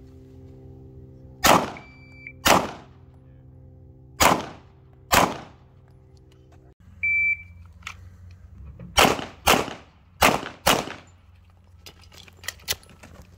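Handgun shots fired in pairs: four shots in the first five seconds, then a short electronic shot-timer beep about seven seconds in, followed by four quicker shots in two pairs as the next string of a 2 + 2 transition drill is fired.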